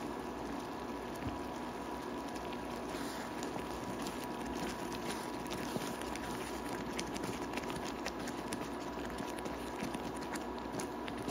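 Thick peach-and-date jam simmering on low heat in a pan, with small bubbles popping steadily through it, while a spatula stirs it.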